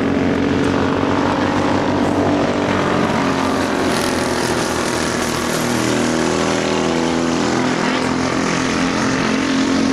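Several racing karts with Harbor Freight Predator 212 single-cylinder four-stroke engines running at high revs, their overlapping engine notes rising and falling in pitch as the karts go by.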